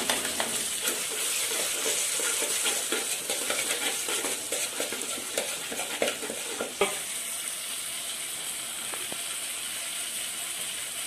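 Cabbage and sauces sizzling in a metal wok while a spatula stirs and scrapes against the pan, with one sharp knock. The stirring stops about seven seconds in, leaving a steady sizzle.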